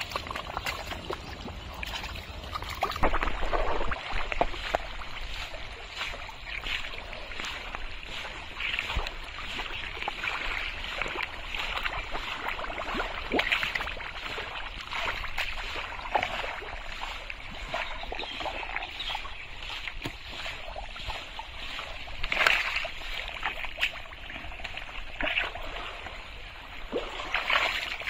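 Thick pond mud and shallow water sloshing and squelching, with irregular splashes, as a person wades through a drained pond and gropes through the mud by hand.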